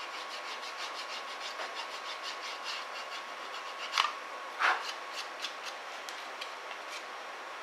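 A stationery eraser rubbed quickly back and forth over a graphics card's gold edge-connector contacts, at about four strokes a second, with two louder sweeps about halfway through. It is scrubbing oxidation off contacts that have darkened.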